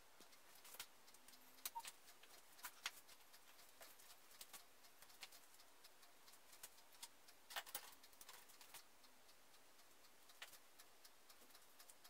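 Near silence with faint, irregular light clicks of Christmas baubles being handled and hung on an artificial tree, a few close together about two-thirds of the way through.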